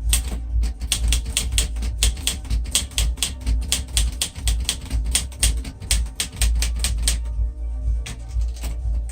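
Keys of a 1974 Underwood 315 manual portable typewriter being typed at a quick, even pace, about five or six type strikes a second. Near the end the typing stops for about a second and a half, then starts again.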